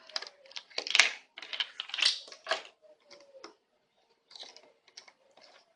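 Measuring spoons clicking and clattering as they are handled, in a quick run of short rattles that thins out after about three seconds.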